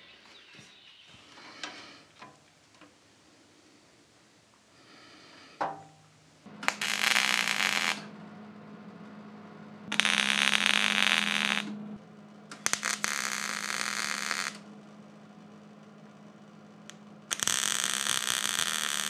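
MIG welder laying four short welds on a steel rain gutter strip, each a burst of steady crackling about one and a half to two seconds long, with pauses between them. A steady low hum runs under the welds from about five seconds in.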